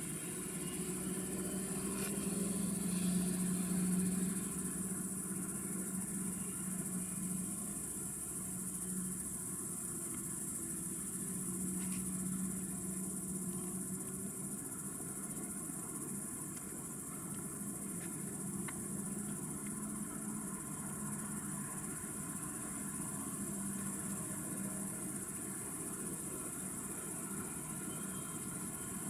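Night insects chirring in a steady high-pitched drone, over a steady low hum.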